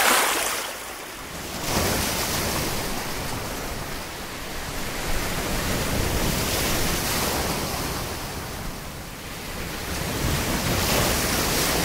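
Sea waves breaking and washing in the shallows: a steady rushing surf that swells and eases every few seconds.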